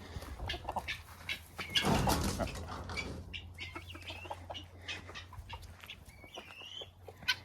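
Domestic hens clucking as they come out through a new hole into the chicken run, with a louder rustling burst about two seconds in and a short sliding chirp near the end.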